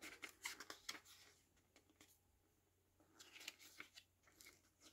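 Faint rustling and soft flicks of a CD booklet's paper pages being turned by hand, in two short spells: one at the start and another about three seconds in.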